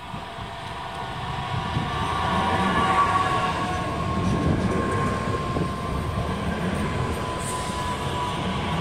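DB class 442 Talent 2 electric multiple unit pulling into the platform and running past close by. It grows louder over the first couple of seconds as it comes alongside. A steady high electric whine drops slightly in pitch as the train slows, over a low rumble of wheels on rail.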